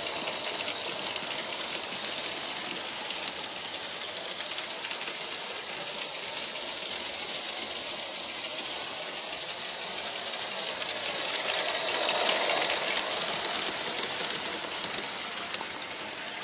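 Accucraft DSP&P 2-8-0 live-steam garden-scale locomotive running: rapid steam exhaust chuffs over a steady hiss. It gets louder about twelve seconds in as it passes close, then a little fainter as it moves off.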